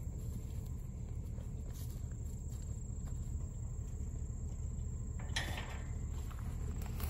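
Outdoor woodland ambience: a steady low rumble under a faint, steady high insect drone, with a brief scuffing rustle about five seconds in.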